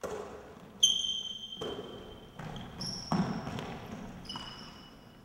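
A basketball being bounced, passed and caught on a hardwood gym floor: about six sharp thuds, each echoing in the hall, with high-pitched squeaks ringing over several of them.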